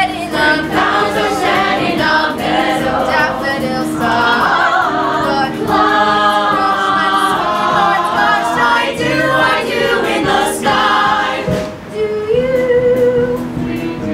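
Musical theatre cast singing together as a chorus in a live stage finale. Near the end, after a short dip, a single voice holds a note.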